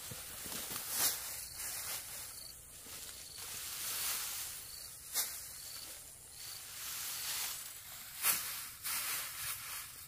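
Dry, cut rice straw rustling and crackling as sheaves of harvested rice are picked up and carried through the stubble, with a few sharp snaps about 1, 5 and 8 seconds in.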